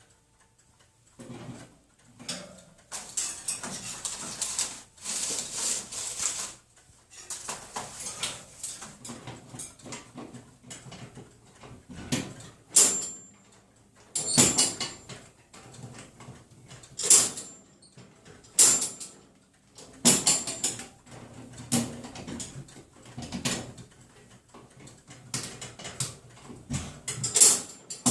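Wire cage doors being banged and rattled over and over by a pet playing on the cage. The irregular metal clanks and rattles come at uneven intervals, several with a brief high ring, and the hardest knocks come in the second half.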